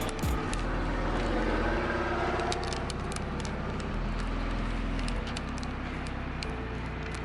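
A motor vehicle engine running steadily, with a few faint clicks.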